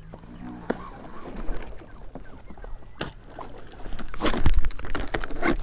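Water lapping and knocking against a small fishing boat's hull, with many scattered small clicks that get busier and louder about four seconds in.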